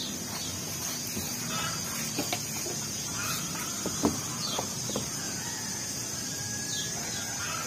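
Outdoor ambience: a few short bird chirps and scattered small clicks over a steady high hiss.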